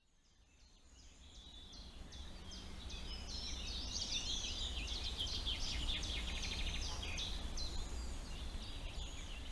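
A nightingale singing a varied song of whistled phrases and fast rattling trills, fading in over the first few seconds, over a steady low background rumble.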